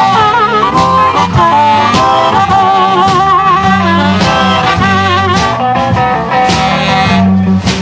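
Electric blues band playing: a harmonica lead with wavering held notes over electric guitar, bass and drums keeping a steady rhythm.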